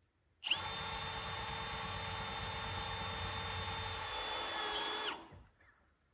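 Power drill running for about five seconds while fastening metal roof panels. It is a steady whine that starts abruptly and dips slightly in pitch just before it stops.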